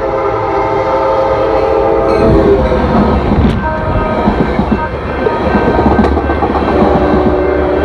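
Coaster commuter train led by an F59PHI diesel locomotive passing close by, its horn sounding a chord that cuts off about two and a half seconds in. Then comes the heavy rumble of the locomotive and cars with rapid wheel clacking over the rail joints, and the horn sounds again near the end.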